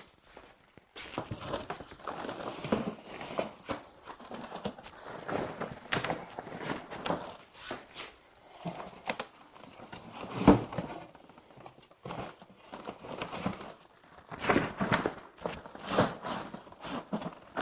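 Handling noise as book-fold floor panels are shifted and spread inside a deflated PVC inflatable boat: the stiff PVC fabric rustles and creases, with irregular knocks of the panels and shuffling steps on a tiled floor. One louder knock comes about ten and a half seconds in.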